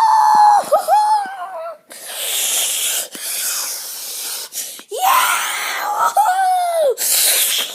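A child's high-pitched wordless squeals, held and wavering in pitch, twice, with breathy hissing sounds between them.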